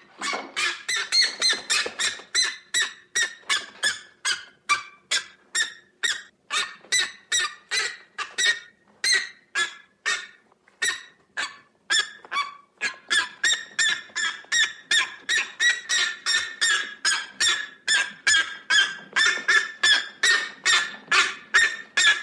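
Goose honking: a long run of short, harsh honks, about three a second, that stops abruptly near the end.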